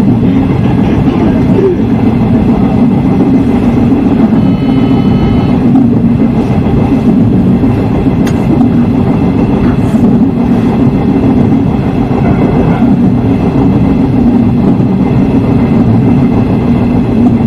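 Electric train running along the track, heard from inside the front car: a steady low hum over track rumble. A brief high whine sounds about four seconds in.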